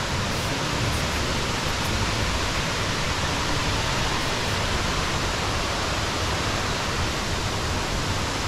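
Steady rushing of a waterfall, an even noise that does not let up, growing stronger as the falls are approached.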